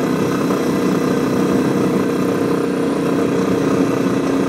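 Royal Enfield Classic 350's single-cylinder engine running steadily under load, lugging in fifth gear up a steep grade as the bike slows toward 50 mph, with wind noise.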